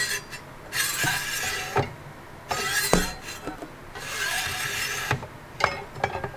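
Kitchen knives sliding in and out of the slots of a metal knife block: three long scraping swishes of steel blade against slot, each ending in a sharp click as the knife seats, with a few more clicks near the end.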